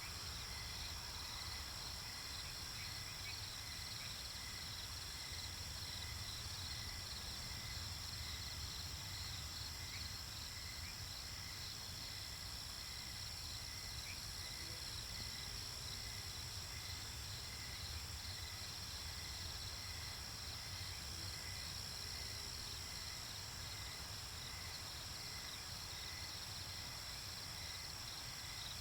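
Night-time nature ambience: a steady chorus of crickets and other insects trilling, with a low hum underneath.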